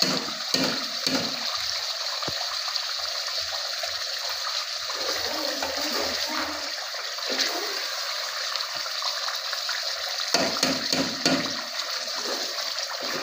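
Chicken karahi cooking in a steel pot over a gas burner: a steady hiss, with a metal spoon scraping and knocking against the pot as it is stirred.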